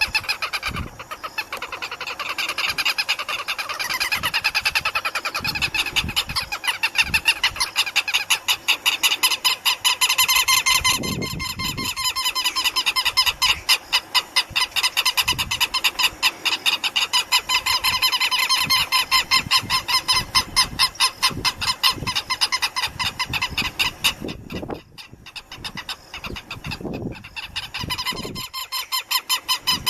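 Southern lapwings calling: a loud, fast, unbroken string of harsh repeated notes, with a short lull about 25 seconds in.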